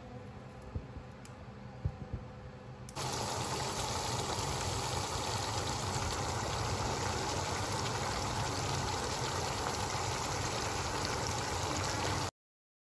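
Chicken in green masala gravy sizzling and bubbling in a pan: a steady sizzle that starts suddenly about three seconds in and cuts off just before the end, after a quieter stretch with a few light clicks.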